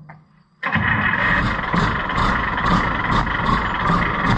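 Allis-Chalmers 200 tractor's six-cylinder diesel engine being started: it catches suddenly about two-thirds of a second in and then runs steadily.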